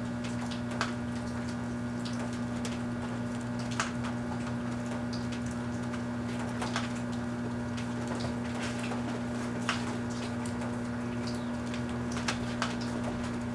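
Large Kenmore microwave oven running with a steady hum, with irregular sharp crackles and pops from the Christmas tree and its wrapped string lights heating inside it.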